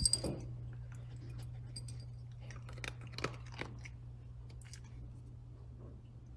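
A small dog crunching dry kibble from a bowl: scattered crisp crunches, most of them around the middle, after a sharp clink at the very start as food is dropped into the bowl. A steady low hum runs underneath.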